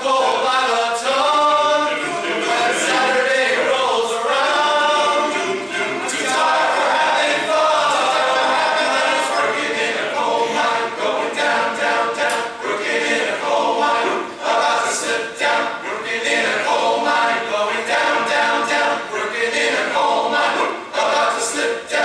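Men's chorus singing a cappella in harmony, with many male voices and no instruments.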